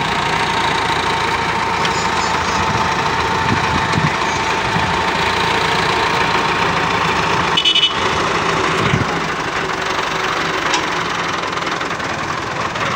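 Massey Ferguson 375 tractor's four-cylinder diesel engine running steadily while its front loader holds a combine harvester header aloft. A brief high-pitched sound cuts in about eight seconds in.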